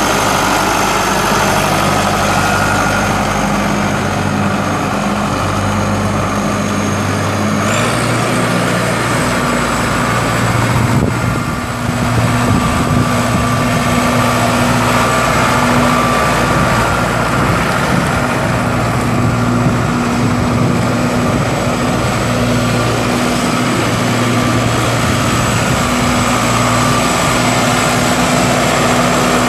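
The four-cylinder turbo diesel of a 2006 John Deere 5425 tractor, running steadily as the tractor is driven. The engine note steps up about eight seconds in.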